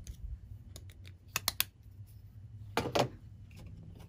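Sewing machine's metal needle plate being set back into place over the bobbin area: a few light clicks about a second and a half in, then a louder metal clack near three seconds as it seats on the machine bed.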